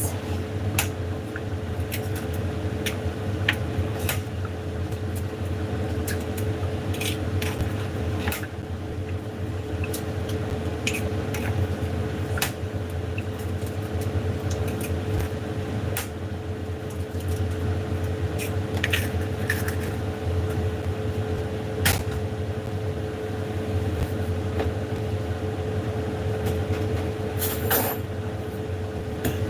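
Steady hum of a kitchen appliance motor, with scattered clicks and taps of cooking utensils and dishes.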